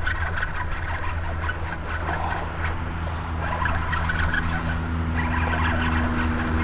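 Steady low mechanical hum, like an engine running, with several steady low tones joining about two seconds in and holding.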